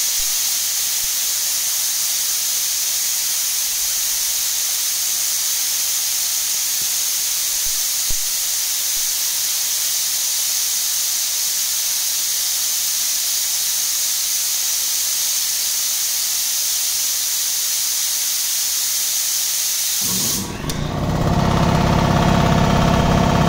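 Compressed air hissing steadily out of an air compressor tank as it is bled down. About 20 seconds in the hiss stops and the Harbor Freight 3 hp compressor pump, driven by a 2 hp motor, starts up and runs to refill the tank.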